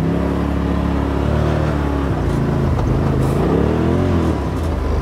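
Turbocharged Polaris RZR side-by-side engine running under way, heard from the cab. Its pitch holds steady, dips, then rises and falls again about three and a half seconds in as the throttle is worked.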